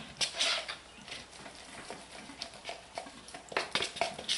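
Light clinks, taps and scrapes of small glass jars and a utensil being handled on a counter, with a cluster of sharp clicks near the end.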